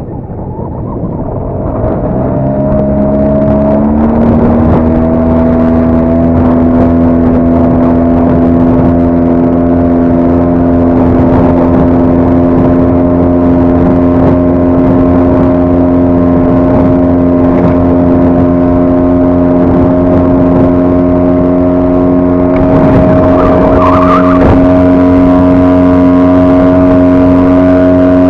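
5 hp outboard motor driving an inflatable boat. Its pitch climbs as the throttle opens about two to four seconds in, then it runs steadily at speed. A hiss grows louder over the engine about three-quarters of the way through.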